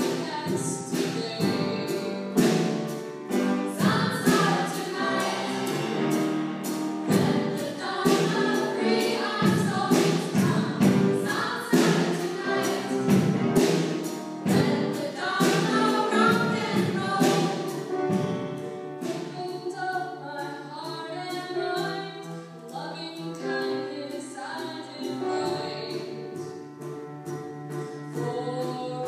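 Music: a choir singing, with short struck notes in the accompaniment.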